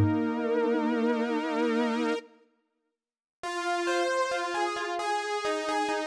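A Korg Nautilus workstation plays a patch from the KA-PRO KRS-70 "Most Wanted" library: a held synth chord with vibrato that stops about two seconds in. After a second of silence, a bright synth patch, "KA Phatt Synth", plays a quick run of short notes.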